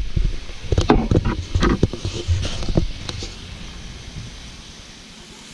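Chunks of deer meat frying in a skillet. A quick run of knocks and clatter fills the first three seconds, then only a steady, fainter sizzle.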